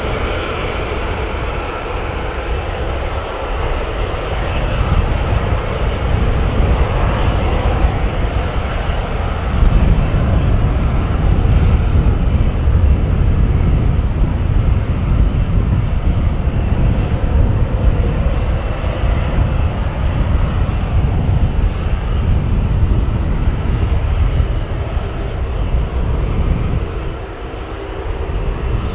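An Airbus A380's four Rolls-Royce Trent 900 turbofans at takeoff thrust as the jet rolls down the runway: a steady jet roar whose deep rumble grows heavier about ten seconds in and eases slightly near the end.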